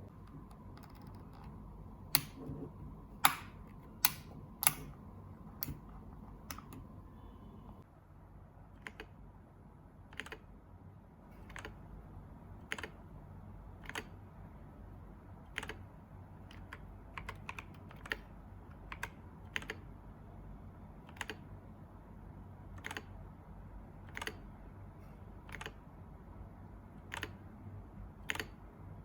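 Keys of an MK66 65% mechanical keyboard with KTT Brown tactile switches being pressed one at a time, roughly one keystroke a second, with a few louder strokes a couple of seconds in.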